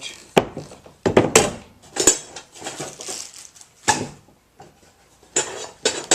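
Steel woodworking hand tools clinking and clattering against one another as they are handled and lifted out of a tool box, with several sharp knocks over a few seconds.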